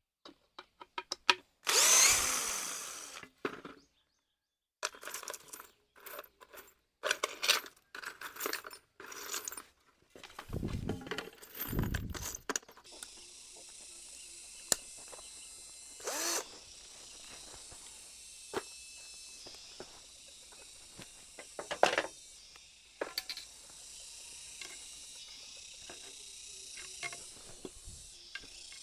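Power drill working on wood in short runs, with knocks and clicks of handling between them and two heavy low thuds near the middle. For the second half, a steady high-pitched hiss runs under occasional knocks.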